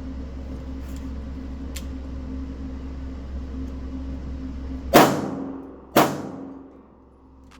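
Two rifle shots from an 18-inch AR-15 chambered in .223 Wylde, about a second apart, fired while zeroing its red dot. They come after a steady low hum.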